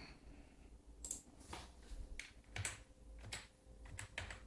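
Computer keyboard keys clicking as a short word is typed: a faint, uneven run of single keystrokes starting about a second in.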